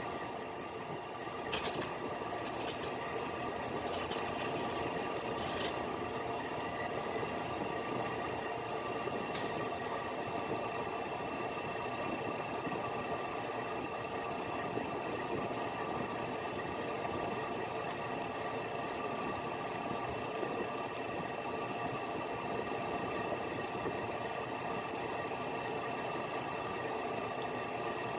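Small fishing boat's engine running steadily with an even, unchanging hum, and a few light clicks and knocks in the first ten seconds.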